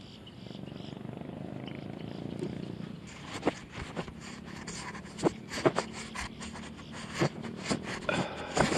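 A low, steady rumble, then from about three seconds in a string of sharp clicks and knocks close to the microphone: handling noise as the camera is set up.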